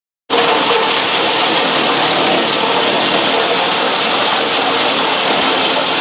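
Wood-chipping line with a vibrating feed table running: a loud, steady mechanical din with the noisy rattle of the machinery and the wood load. It starts just after the beginning and holds without a break.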